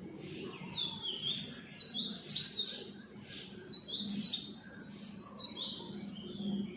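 Small songbirds chirping and twittering: a quick run of short, high notes and little up-and-down sweeps, one after another, over a faint low hum.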